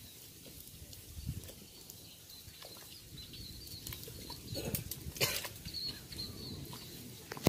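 Whole fish being handled and slid off a board into a pot of simmering broth: soft knocks, rustles and plops, the loudest clustered about five seconds in and a sharp knock at the very end.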